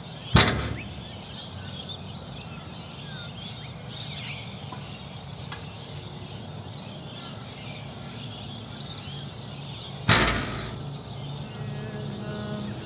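Two loud knocks on the steel doors of a shipping container as a climber's hands and feet strike the door and its locking bars: one just after the start, and one about ten seconds in with a short ringing tail. Faint bird calls sound in the background.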